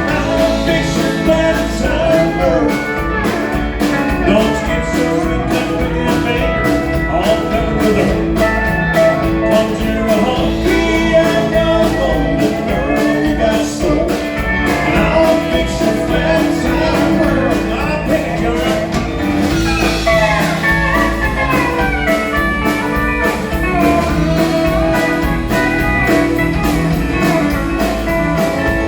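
Live country-rock band playing: guitars over drums keeping a steady beat, in an instrumental stretch of the song.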